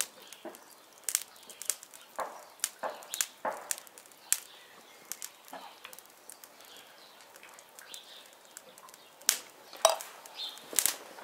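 Irregular crackling pops, a few every second, from pork steaks and bacon-and-cheese potatoes cooking over glowing charcoal on a kettle grill.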